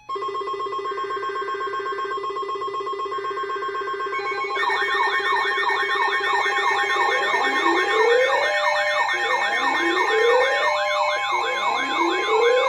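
An enhanced Emergency Alert System alarm: the NOAA Weather Radio warning tone holds steady with other steady tones layered over it. About four and a half seconds in, several siren sounds join, fast warbling ones and slower repeated rising wails, and the whole alarm grows louder. The alarm heralds a severe thunderstorm warning.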